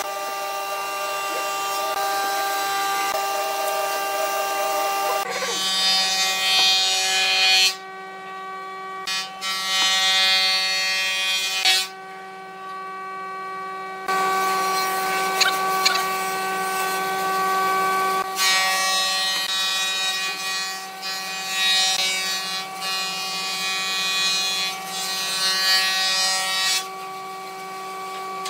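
Steady whine of an electric motor running in the workshop, changing abruptly several times, with a couple of light knocks of wooden blocks being set against each other.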